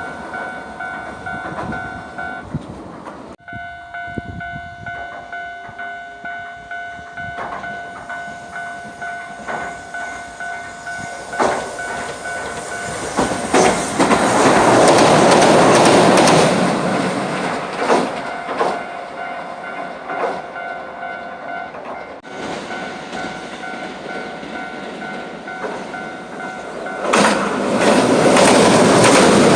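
Japanese level-crossing warning bell ringing in a steady, even rhythm while Hiroden trains run over the crossing. The wheels on the rails swell loud about halfway through and again near the end, with sharp clacks over the rail joints.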